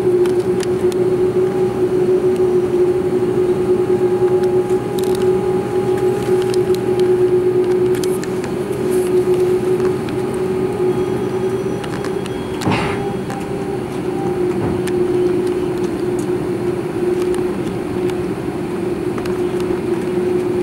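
Airbus A330-300 cabin noise while taxiing: jet engines at low thrust, a steady hum over a rumble, heard from inside the cabin by the wing. A single knock comes about two-thirds of the way through.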